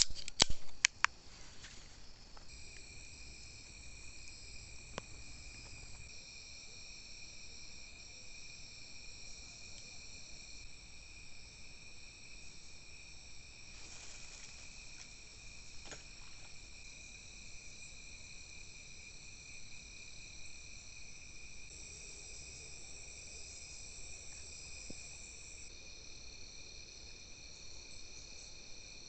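Insects trilling in a steady chorus of several high, even tones, starting a couple of seconds in after a few sharp clicks.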